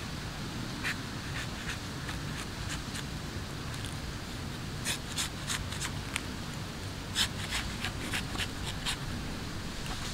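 A knife cutting and scraping fibrous palmyra palm fruit on a wooden chopping block: three clusters of short, sharp cuts, several a second, over a steady low background.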